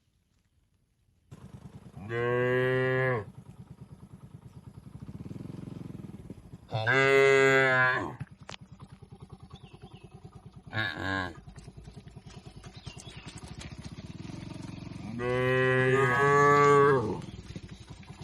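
Cattle mooing four times: three calls of about a second each, one of them short, and a longer, louder moo near the end, over a steady low hum.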